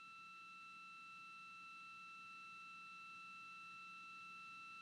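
Near silence with a faint, steady electronic tone held at one pitch, with a low hum underneath.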